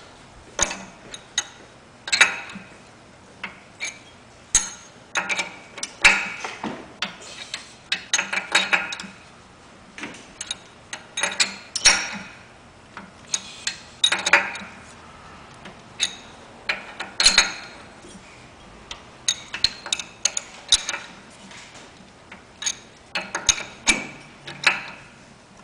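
Metal wrench clicking and scraping against the brass fittings of a carpet-cleaning truckmount's chemical pump, in irregular short clinks, some ringing briefly, as the fittings are turned and tightened back on.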